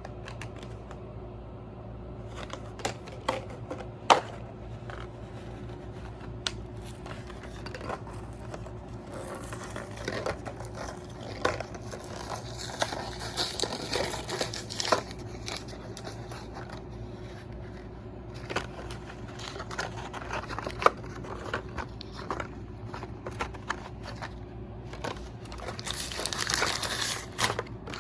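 Plastic and cardboard toy-car packaging being handled and opened by hand: crinkling with scattered sharp clicks and scrapes, and a longer, louder stretch of crinkling near the end. A steady low hum runs underneath.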